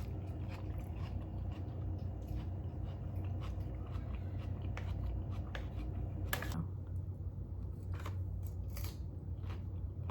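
Close-up chewing and crunching of food, a run of short crisp clicks and crunches, with two louder crunches about six and nine seconds in, over a steady low hum.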